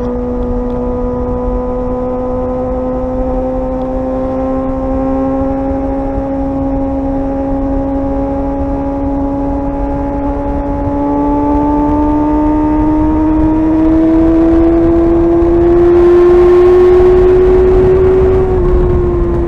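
Suzuki GSR 600's inline-four engine pulling under steady throttle. Its note climbs slowly and gets louder, then falls a little near the end as the throttle eases.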